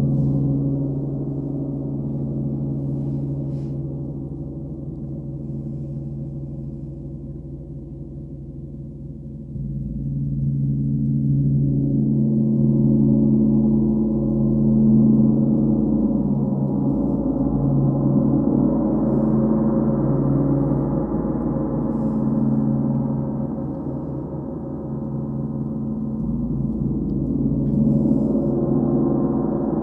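Large gong played with soft felt mallets: a long, sustained wash of low ringing tones. It fades over the first several seconds, then swells again after a fresh stroke about a third of the way in, building to its loudest around the middle, with another swell near the end.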